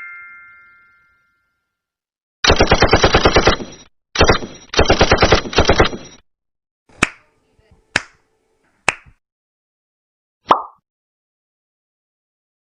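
Machine-gun sound effect: two rapid bursts of automatic fire, each about a second and a half long, followed by four single gunshots spaced about a second apart.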